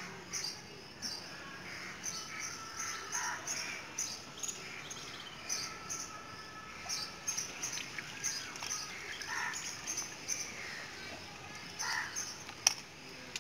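Birds chirping and calling in the background, short scattered calls throughout, with one sharp click near the end.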